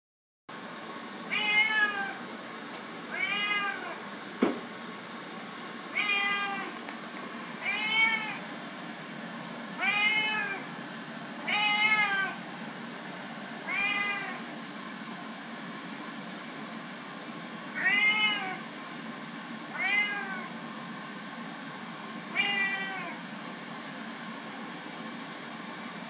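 A domestic cat meowing repeatedly, about ten meows roughly two seconds apart, each rising and then falling in pitch. A single sharp knock comes about four seconds in.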